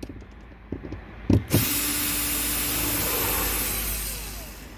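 Power drill driving out a Phillips screw from a car door's grab-handle trim. A click about a second in, then the drill runs steadily for a couple of seconds and winds down near the end.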